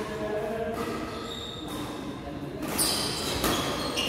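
Badminton hall sounds: rackets striking a shuttlecock and shoes squeaking on the court, with voices echoing in the large hall.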